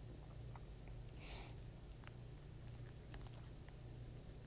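Quiet room tone with a steady low hum, and one short soft breath about a second and a half in.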